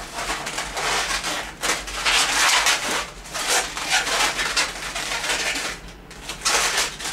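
Gray 260 latex modelling balloons squeaking and rubbing against each other as they are twisted and squeezed into loop twists for the shark's back fin, in a run of short irregular bursts.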